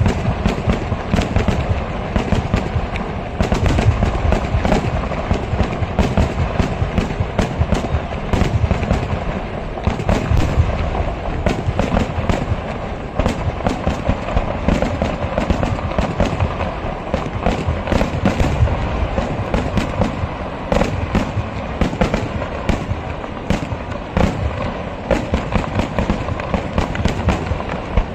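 Kerala temple-festival fireworks (vedikettu): an unbroken barrage of firecracker bangs, many a second, overlapping into a steady, loud din with no pause.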